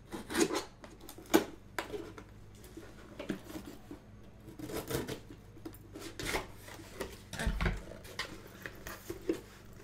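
Scissors snipping and cutting through packing tape on a cardboard shipping box, with irregular crackling, rustling and knocks as the box is handled and opened. The two sharpest clicks come in the first two seconds, and a dull thump comes about seven and a half seconds in.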